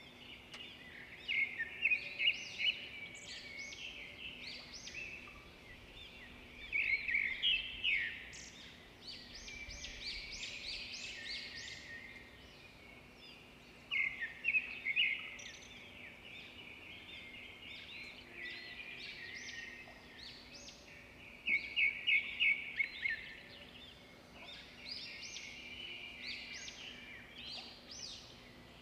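Small birds chirping and twittering in quick clusters that come and go every few seconds, over a faint steady hum.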